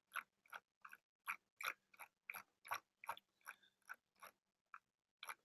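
Faint, irregular clicking of a computer mouse, about three to four short clicks a second, as web pages are navigated.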